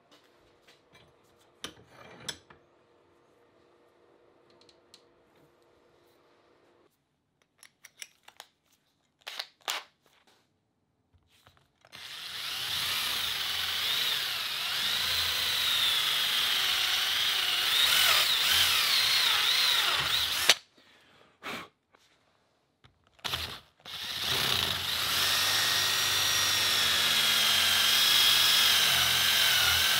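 Cordless drill with a twist bit boring into the wooden wedge in the eye of a ball peen hammer head, drilling the wedge out to free the head from the handle. After about twelve seconds of near quiet with a few light knocks, the drill runs for about eight seconds, stops, gives two short bursts, then runs steadily again, its pitch wavering under load.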